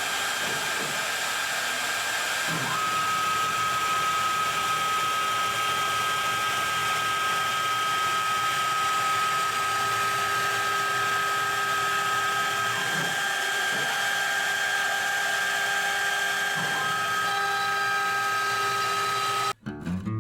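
Woodworking power tool motor running steadily with a high whine over a hiss of noise, cutting off suddenly near the end.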